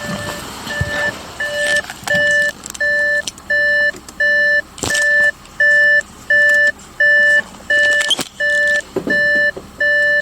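Electronic warning beeper sounding over and over, about one and a half flat, even beeps a second, faint at first and then loud and steady, with a few clicks and knocks in between.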